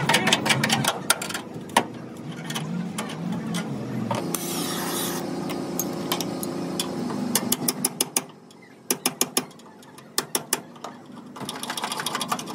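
Metalwork on a car body: a rapid run of taps at first, then a few seconds of steady mechanical noise, then separate hammer blows spaced out through the last few seconds.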